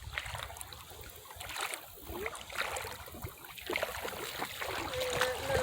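Footsteps sloshing and splashing through a shallow creek run with soft, quicksand-like bottom, irregular splashes over trickling water. A thin wavering whine comes in near the end.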